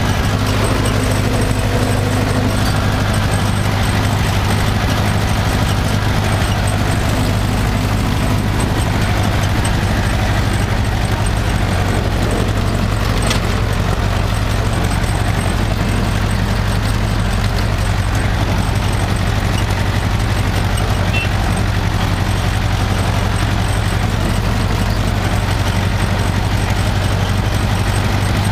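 Tractor engine running steadily at a constant speed, a low even hum.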